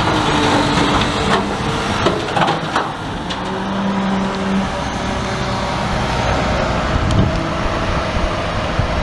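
Garbage truck working up close: its engine runs with steady whining tones, and there are a few sharp clanks and bangs in the first three seconds.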